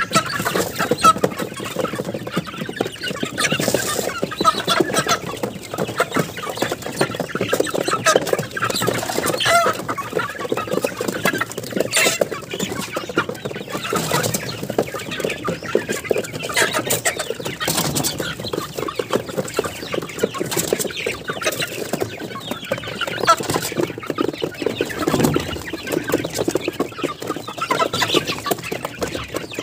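A flock of hungry young chickens clucking continuously as they feed.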